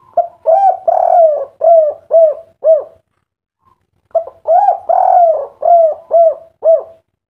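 Spotted dove (tekukur/derkuku) cooing in its 'kuk 3' song type: two phrases of six or seven coo notes each, about three seconds apiece, with a pause of about a second between them.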